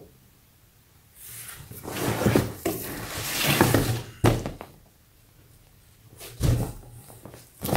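A bedding set in a clear vinyl zippered bag rustling against cardboard as it is pulled out of a large box, followed by two dull thumps, about four and six seconds in, as it is set down.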